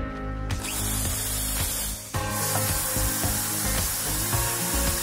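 Electric drill running, spinning stainless steel nuts on a bolt in its chuck while a steel hand file is pressed against them, giving a steady hissing scrape over background music. The noise drops off briefly about two seconds in, then picks up again.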